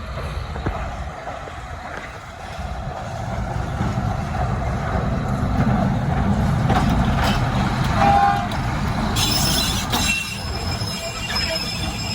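A sugar-cane train passes: a locomotive hauling a long string of cane bins, its wagons rumbling steadily over the track with scattered clicks. From about nine seconds in, the wheels squeal high-pitched against the rails.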